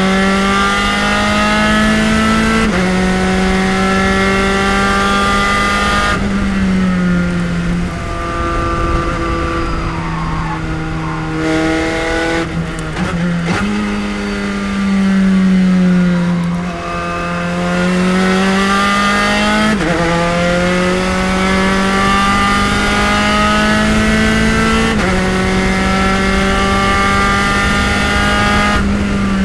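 Spec Racer Ford race car's engine at racing speed, its pitch climbing under full throttle and dropping in steps at the upshifts, twice early on and twice in the second half. About a third of the way in the note falls away under braking, with a quick run of downshifts, before the car pulls hard again.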